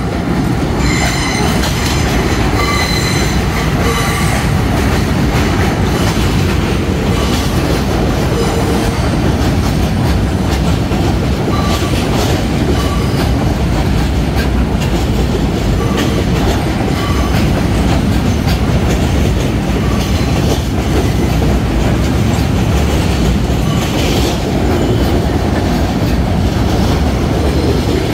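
R68 New York City subway train running alongside the platform: a steady loud rumble of steel wheels on rail with clickety-clack from the rail joints, and brief high wheel squeals now and then.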